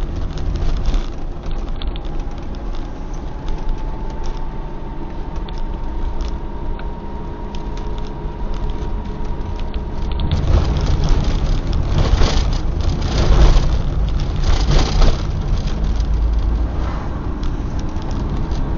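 Car driving along a road: a steady low rumble of engine and tyres, with a stretch of louder knocks and jolts about ten to fifteen seconds in.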